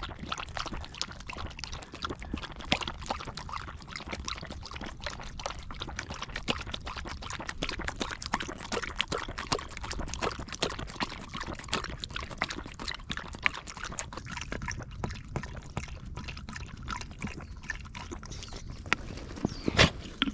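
A Kai Ken dog lapping water from a plastic bottle held to its mouth: a rapid, continuous run of wet licks and splashes. Near the end the dog gives a burp.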